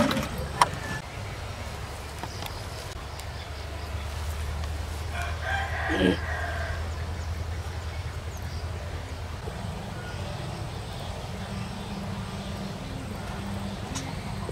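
A rooster crows once, about five seconds in, over a steady low hum.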